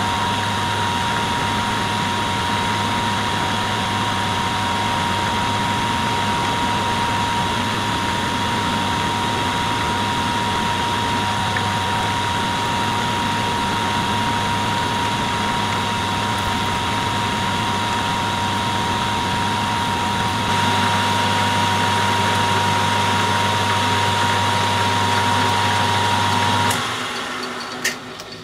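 HAFCO AL336 metal lathe running steadily, a low hum with a steady high whine, then switched off near the end and winding down.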